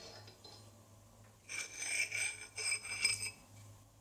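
Ratcheting box-end wrench clicking in two quick runs with a metallic ring, the first about a second and a half in and the second just before three seconds.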